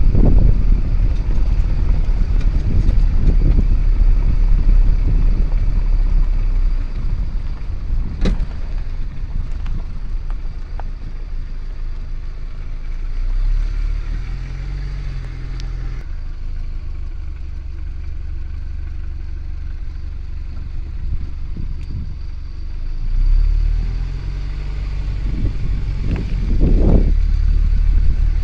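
Wind buffeting the phone's microphone: a heavy low rumble that swells and eases, with one sharp click about eight seconds in.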